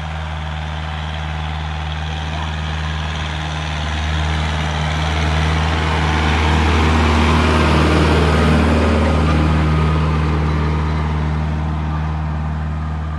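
Kubota 50 hp tractor's diesel engine running steadily under load as it pulls a tillage implement through soil. It gets louder as the tractor comes close about halfway through, then fades.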